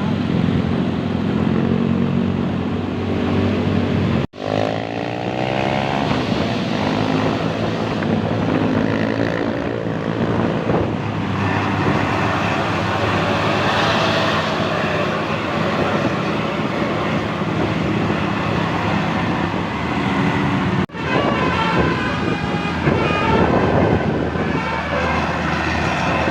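Vehicle engine and road noise while travelling in traffic, the sound dropping out abruptly for a moment twice.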